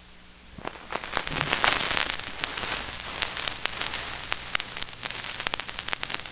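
Vinyl 45 rpm single playing its lead-in groove under the stylus: surface hiss with dense crackle and sharp pops, which start about half a second in.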